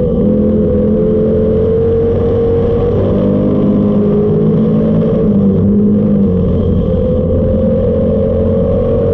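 Dirt-track race car's engine running hard at nearly steady high revs, with small dips in pitch, heard from inside the cockpit.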